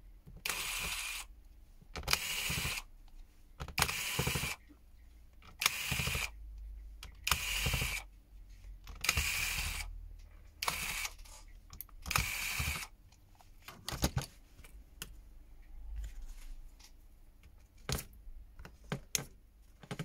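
Small electric precision screwdriver whirring in eight short bursts, each under a second, as it backs out the tiny screws of a phone's internal cover; after that, only a few light clicks of small parts being handled.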